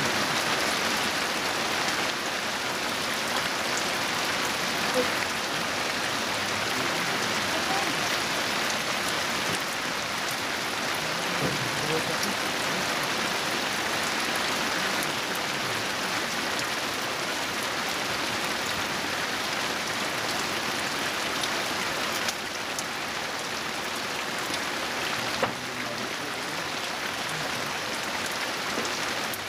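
Heavy rain falling steadily on the open water of a reservoir, an even hiss.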